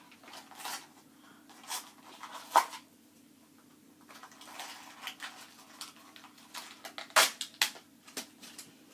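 Hands opening a small cardboard Minecraft mini-figure blind box and its packaging: irregular crinkles and sharp clicks, the loudest about two and a half seconds in and a pair of loud clicks a little after seven seconds.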